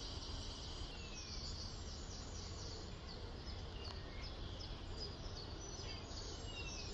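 Small birds chirping and twittering, with a few thin falling whistles, over a steady low background rumble.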